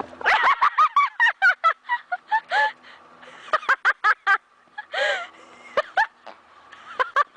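An animal calling in rapid runs of short cries that rise and fall in pitch, several a second for the first two seconds or so, then in short bursts of a few calls spread through the rest.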